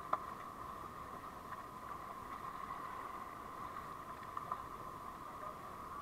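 Faint, muffled, steady rush of river water around a paddled inflatable raft, with a few light knocks of paddles.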